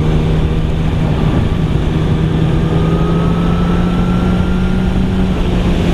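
Yamaha YZF-R1 RN19's inline-four engine, with an Akrapovič exhaust, running at steady revs as the bike cruises, with wind rushing over the microphone. The engine holds one even note until shortly before the end, when it changes.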